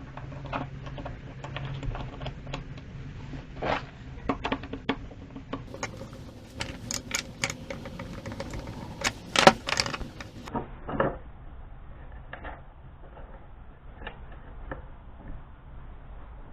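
Small metal hardware and hand tools clicking and clanking: a string of sharp clicks and knocks as bolts and lock nuts are worked into place, the loudest knocks about nine to ten seconds in.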